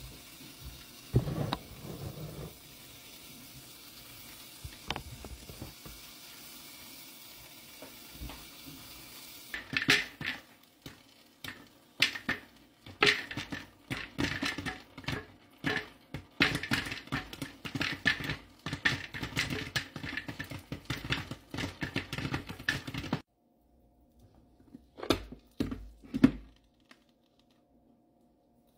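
Electric popcorn maker with a clear dome: a steady hiss as the kernels heat, then from about ten seconds in a dense, irregular crackle of kernels popping that cuts off suddenly. A few knocks of plastic being handled follow near the end.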